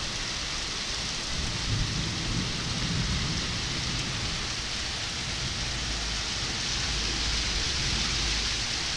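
Heavy rain pouring onto paving and a parking lot, a steady dense hiss, with low rumbling of the thunderstorm swelling about two seconds in and again in the second half.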